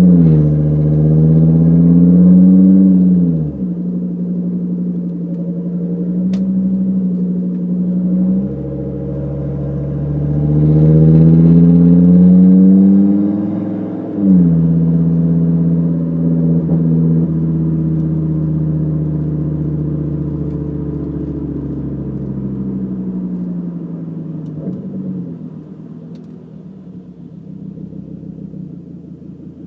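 Volvo S60R turbocharged five-cylinder heard from inside the cabin, breathing through a 3-inch CNT Racing catted downpipe and a Dynomax Bullet resonator with no muffler. The engine pulls up in pitch twice, each pull ending in a sudden drop. Between the pulls it holds a loud, steady drone at cruise, and it grows quieter near the end as the car slows.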